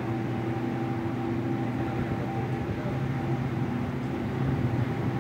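Boat engine running steadily under way, a steady low drone with a fainter higher hum over it.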